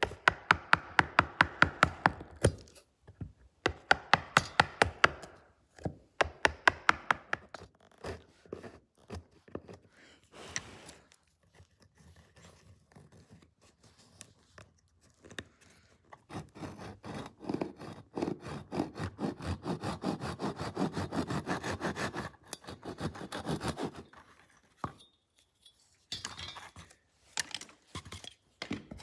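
A hand chisel scraping and paring soft, woodworm-eaten wood in quick strokes, several a second. The strokes come in runs with short pauses; the longest, densest run is in the second half.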